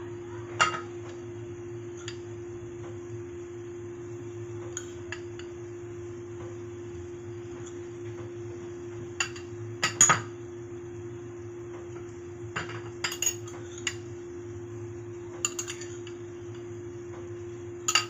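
Metal utensil clinking against a stainless steel pot every second or two, loudest about ten seconds in, as crushed garlic and ginger are tipped onto frying onions. A steady hum runs underneath.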